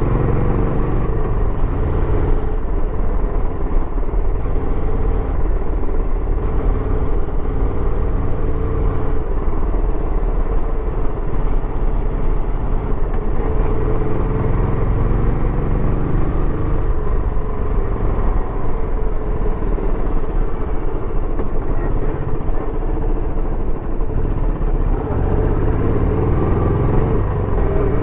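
Royal Enfield Bullet 350X's single-cylinder engine running through its stock exhaust while riding. The engine note rises and falls with the throttle and climbs near the end.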